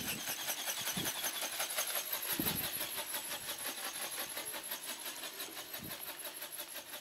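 Brushless outrunner motor and wing-flapping drive of a radio-controlled pterodactyl ornithopter running with a fast, even pulsing whine that grows fainter as it flies away. A few short low thumps of gusty wind hit the microphone.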